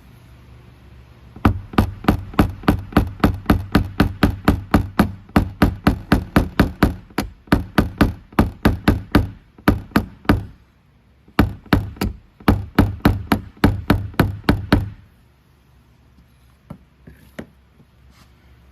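A small hammer tapping a knockdown punch on the dented car door panel in quick, even strokes, about five a second, in two runs with a short pause near the middle. This is the tap-down stage of paintless dent repair, knocking down high spots around the dent.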